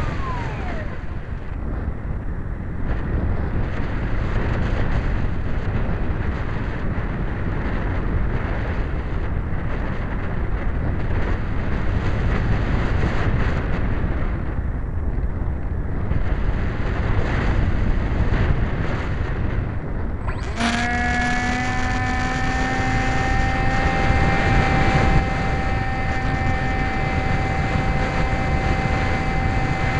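Wind rushing over the onboard camera of a Skysurfer RC foam glider while its electric pusher motor is off, with a brief falling whine at the very start as the motor winds down. About two-thirds of the way through, the motor is throttled up suddenly and runs with a steady whine over the wind.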